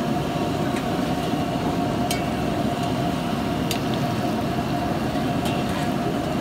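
Steady roar of open-flame burners under a row of large woks of frying chicken, with a few sharp clinks of a metal ladle striking a wok.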